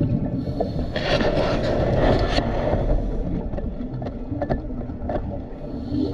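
Underwater rumble of water against a camera housing. About a second in comes a hissing rush of exhaled scuba bubbles lasting about a second and a half, with scattered small clicks.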